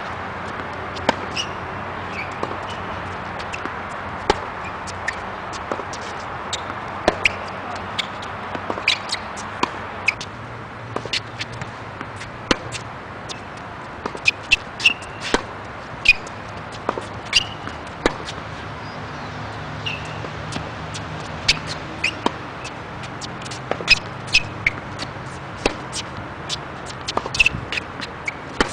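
Tennis balls being struck with a racket and bouncing on a hard court: sharp, irregular pops, a few every couple of seconds and thicker in the middle of the stretch, over a steady outdoor background noise.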